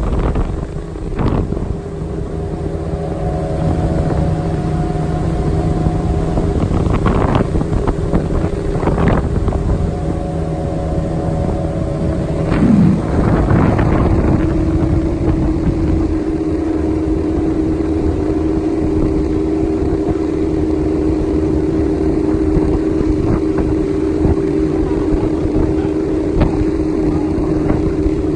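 Outboard motor of a small aluminium boat running steadily under way, with wind buffeting the microphone. There are a few brief knocks in the first half, and about halfway through the engine note shifts, then holds steady.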